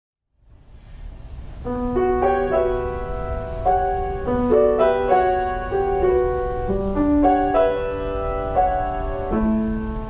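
Grand piano playing a slow opening passage of held notes and chords. It comes in after a moment of silence, and its notes begin about a second and a half in.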